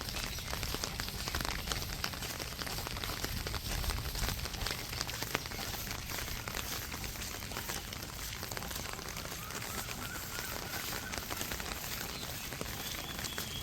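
Steady rain falling on a street, a dense patter of many small drop hits. A faint thin high tone sounds for a few seconds about two-thirds of the way in.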